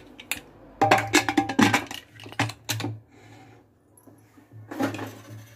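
Metal clicks and clatter of a pressure cooker's lid being locked shut and the cooker set down on a gas stove, in two bursts about a second and five seconds in.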